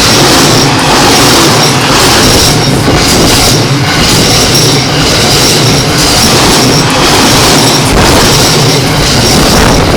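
An E217-series electric commuter train running past close by over a level crossing: a loud, steady rush of wheels on rail with a repeating clatter.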